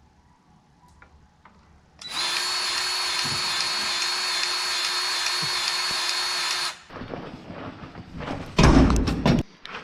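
A small electric motor whirs at a steady pitch for about five seconds, then stops abruptly. Irregular rattling follows, with a couple of loud low bumps near the end.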